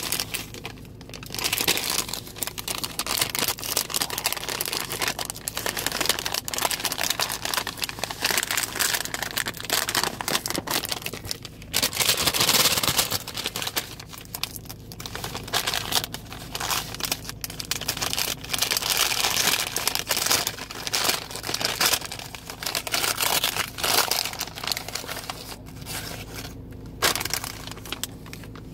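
Foil-lined paper corn dog sleeve crinkling and crackling as it is handled and torn open by hand, in long stretches of dense rustling over a faint steady low hum.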